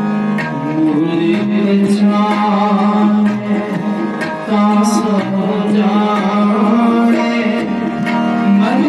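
Sikh kirtan music: harmonium playing held notes and a moving melody over a steady tabla beat.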